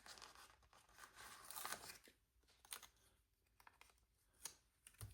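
Faint rustling and peeling of paper planner stickers being lifted off their sheet and handled, with a few soft ticks.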